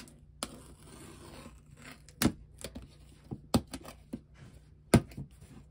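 Scissors cutting through the plastic shrink-wrap on a cardboard box, with faint crinkling of the wrap and several sharp clicks and taps spaced roughly a second apart.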